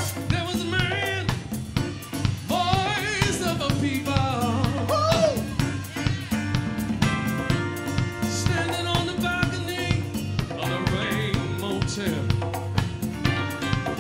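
Live band music: electric guitars and a drum kit keeping a steady beat, with a singer's wavering voice over the first five seconds or so, then held guitar chords.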